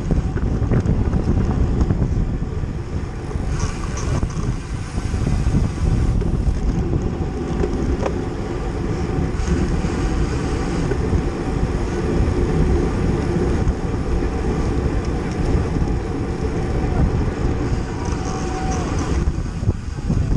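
Wind buffeting the microphone of a camera moving at cycling race speed: a loud, uneven low rumble that keeps going and rises and falls in gusts.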